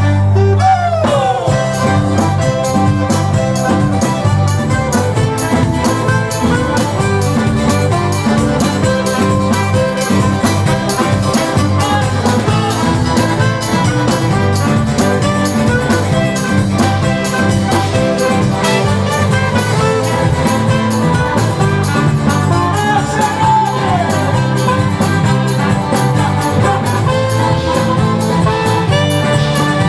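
Band music with a steady beat and bass line under sustained melody notes.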